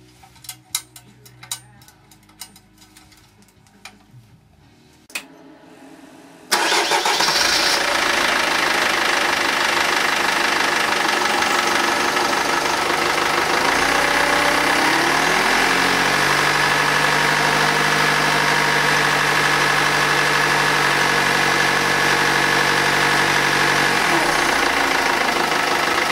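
A few clicks and knocks, then, about six seconds in, the 1999 Mercedes C220 CDI's common-rail turbo-diesel inline-four starts abruptly and runs at a steady idle, its fresh oil just filled.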